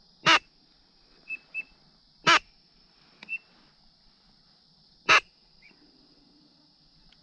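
Three loud single duck quacks, a couple of seconds apart, with a few faint, high, short peeps in between. A steady high buzz of insects runs underneath.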